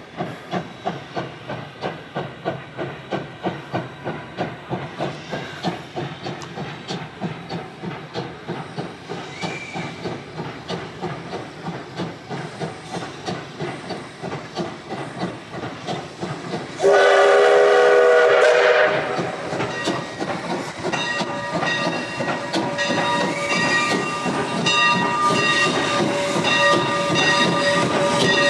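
Steam locomotive working past, its exhaust chuffing in an even beat of about two to three a second. About 17 s in, its steam whistle sounds a loud chord for about two seconds, followed by a steady hiss of steam with ringing tones.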